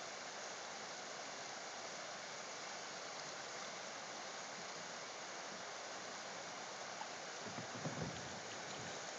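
Steady rushing noise of running water, with a brief low rumble about eight seconds in.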